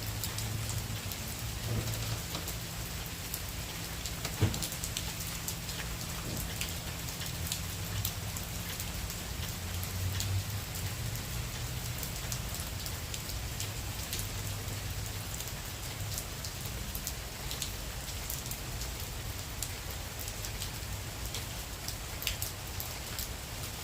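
Steady tropical-storm rain falling, with scattered sharp ticks of drops striking a surface. There is one louder knock about four and a half seconds in.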